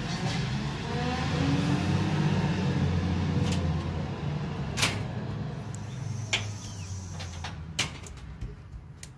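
Garbage truck engine pulling away, its note rising through the first few seconds and then fading as it recedes, with a few sharp knocks along the way.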